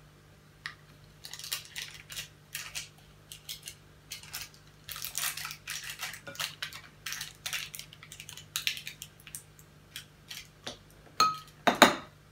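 A metal spoon scraping and clinking against a small glass bowl while stirring a sticky mixture of melted marshmallow and Nutella, in irregular strokes with short pauses. There is a sharper ringing clink about a second before the end.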